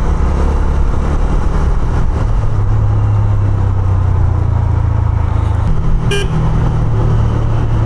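Honda CB 150F's single-cylinder four-stroke engine running steadily while riding in traffic, under a steady haze of road noise. A short vehicle horn toot sounds about six seconds in.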